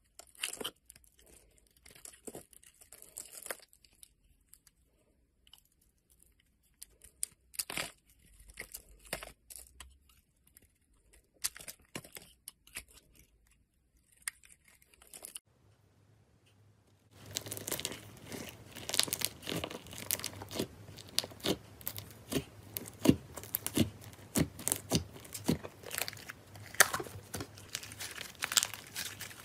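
A utility-knife blade scraping and shaving curls off a crumbly bar of soap, in short separate scrapes and cracks. A little past halfway it changes to white fluffy slime being stretched and pulled by hand, a dense run of crackling pops.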